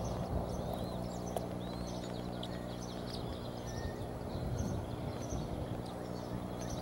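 Faint, short, high bird chirps scattered throughout, over a steady wash of wind-like noise and a low hum.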